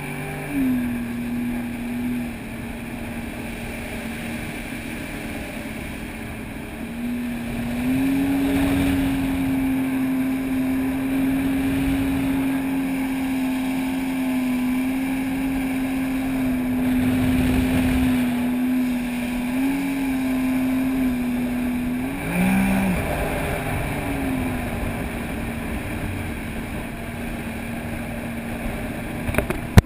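Sea-Doo personal watercraft's engine running under way, with water rushing past the hull. The engine pitch stays mostly steady, picks up about eight seconds in, dips briefly a little past twenty seconds and then settles slightly lower.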